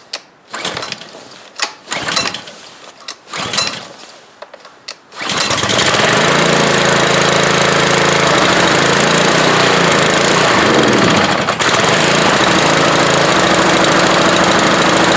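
Honda GCV190 single-cylinder lawnmower-type engine on a pressure washer, pull-started on choke. Several short pulls of the recoil starter, then it catches about five seconds in and runs steadily. It now starts because the faulty ignition coil, which gave no spark, has been replaced.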